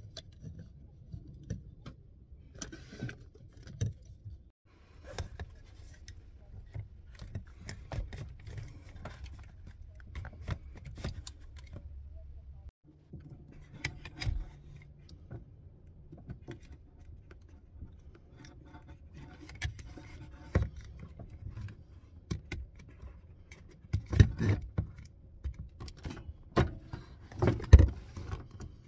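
Handling noise inside a car: scattered clicks, knocks and light rattles of plastic parts as a headrest-mounted holder is fitted to the back of a front seat and a clear plastic storage box is handled, with louder bunches of knocks near the end, over a faint low hum.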